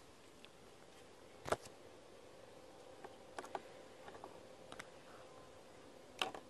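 Quiet background with a few faint, short clicks, the loudest about one and a half seconds in and smaller ones later.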